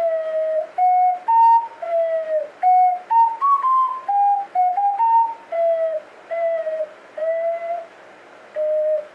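A simple tune played on an ocarina by a beginner: a string of clear single notes, most held about half a second, with a quicker run of higher notes in the middle.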